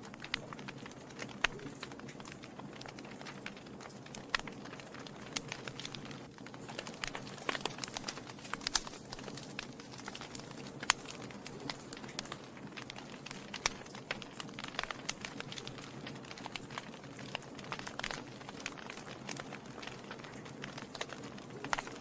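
Wood logs burning in a fireplace, crackling with irregular sharp pops over a steady low sound of the flames. One pop about eleven seconds in is much louder than the rest.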